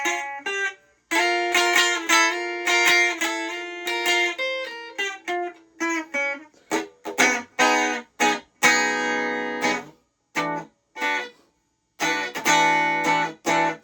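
Fender Stratocaster electric guitar played through an amp on its split bridge humbucker with the tone knob cranked all the way, giving a bright, twangy Telecaster-like tone. Picked single-note phrases with short breaks, then fuller strummed chords about nine seconds in and again near the end.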